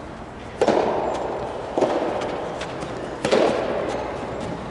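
Rubber soft tennis ball struck by rackets in a rally: three sharp hits about a second and a half apart, each ringing on in the echo of a large domed hall.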